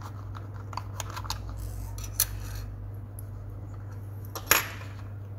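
Small plastic clicks and taps as the battery cover is slid off the back of an XB-866 pocket digital multimeter and the parts are handled, with a sharp click a little after two seconds and a louder click about four and a half seconds in. A steady low hum runs underneath.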